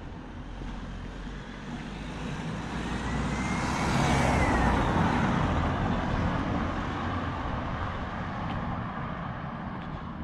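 A police car drives past on the road. Its tyre and engine noise swells to a peak about four seconds in, with a faint whine that dips in pitch as it passes, then fades as the car pulls away. No siren is sounding.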